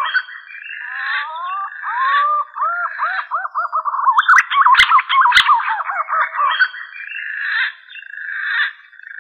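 Punai (green pigeon) lure call: a long run of fluting, wavering whistles, many notes arching or gliding upward, with a few sharp clicks about halfway through.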